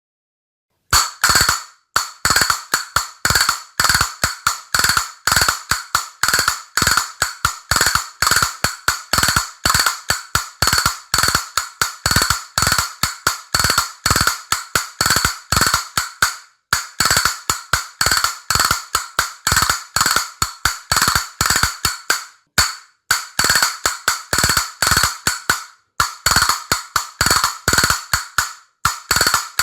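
Castanets clicking in quick rhythmic runs of sharp wooden clicks, starting about a second in, with a few brief pauses between phrases.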